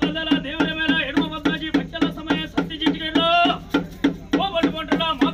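Bhuta kola ritual music: drums beating a fast, even rhythm of about four or five strokes a second, with a wavering pitched melody carried over them.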